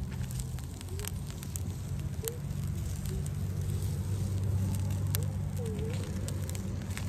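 Crappie fillets sizzling on aluminum foil over smoking wood coals, with scattered crackles and pops. A steady low rumble of wind on the microphone runs underneath.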